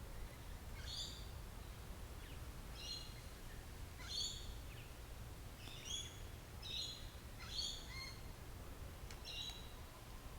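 Wild birds calling: about seven short, high chirping calls at irregular intervals, over a faint low steady rumble.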